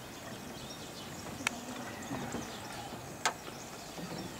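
Outdoor background noise with two short, sharp clicks about two seconds apart, the second the louder.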